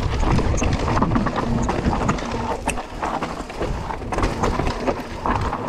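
Mountain bike riding down a loose gravel and dirt trail: tyres crunching over stones and the bike rattling with many sharp clicks over bumps, over a steady low rumble.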